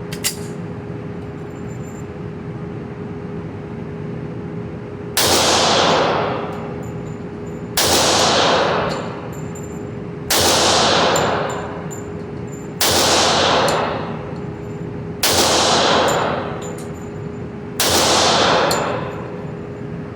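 Kimber 1911 pistol firing .45 ACP: six single shots spaced evenly about two and a half seconds apart, starting about five seconds in, each ringing out for about a second. A faint steady hum runs underneath.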